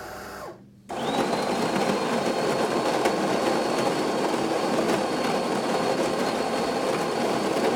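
DeLonghi bean-to-cup coffee machine making coffee: the bean grinder stops about half a second in, then the pump starts and runs loud and steady, with a thin high whine over it, as coffee brews into the cup. It cuts off at the very end.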